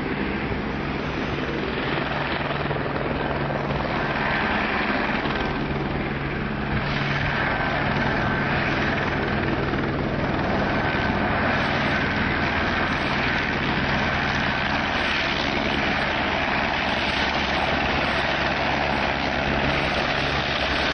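Airbus (Eurocopter) Écureuil helicopter hovering and manoeuvring low. Its rotor and turbine engine run steadily, and a thin high whine comes and goes.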